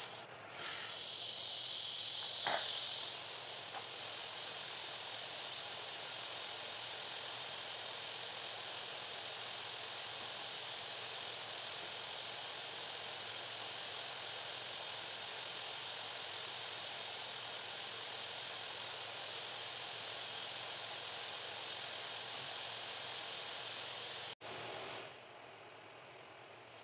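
Carpet-cleaning extraction wand hissing steadily as it sprays and vacuums a rug. The hiss is louder and sharper for the first few seconds, then holds even, and stops abruptly near the end.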